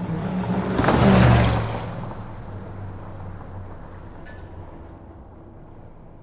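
A car passing at highway speed: tyre and wind noise with a low engine hum swell to a peak about a second in, then fade to a steady quieter rumble.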